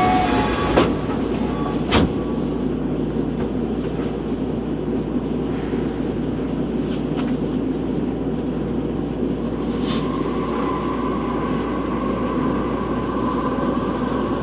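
Toei 12-600 series linear-motor subway car running through the tunnel, heard from inside the car: a steady rumble of wheels and air. There is a single click about two seconds in, a short hiss about ten seconds in, and a faint steady whine that sets in shortly before it and runs on.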